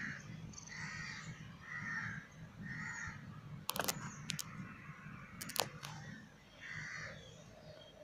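A crow cawing repeatedly, harsh calls about once a second with a gap in the middle. A few sharp clicks come about halfway through.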